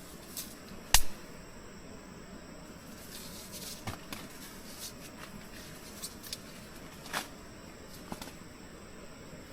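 A sharp knock about a second in, then scattered lighter clicks and taps over a steady background hiss.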